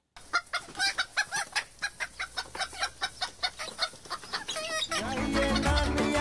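A flock of chickens clucking, many rapid short calls overlapping. Music starts about five seconds in.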